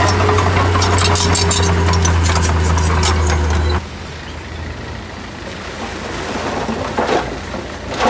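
Heavy diesel engine of earthmoving machinery running steadily, with metallic clanks and rattles over it. The sound cuts off abruptly about four seconds in, leaving a quieter, rougher noise.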